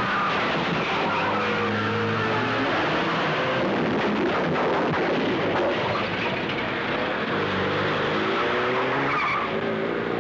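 Two cars' engines revving hard, rising and falling in pitch, with tyres squealing through the turns of a car chase.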